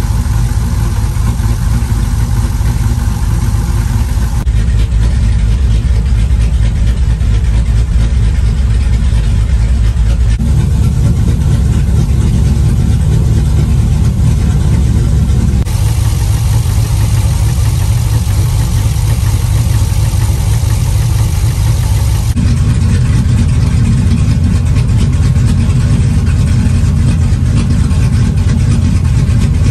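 A Ram 1500's 5.7-litre Hemi V8, fitted with an aftermarket camshaft and long-tube headers, idling steadily. Its tone changes abruptly a few times.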